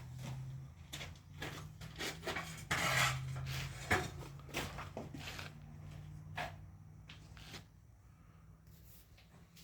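Wooden timbers knocking and scraping as a piece is set in place, with a rough scrape about three seconds in and a sharp knock about four seconds in, over a steady low engine hum.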